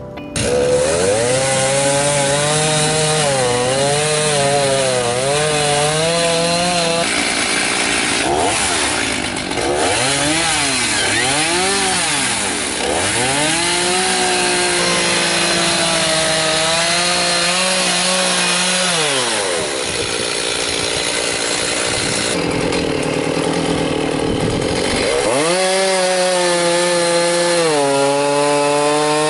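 Stihl Farm Boss two-stroke chainsaw running, revved up and down several times, then held at high revs while cutting into a standing tree trunk. The revs drop and pick up again about twenty seconds in.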